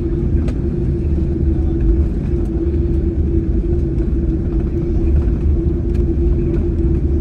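Steady cabin noise inside a Boeing 747-8i: a deep, even rumble of its GEnx engines and the airflow, with a steady hum running through it.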